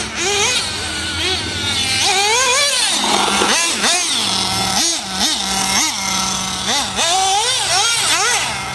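HSP Bazooka radio-controlled car's small engine revving up and down over and over as it is driven over dirt jumps, the pitch rising and falling quickly many times.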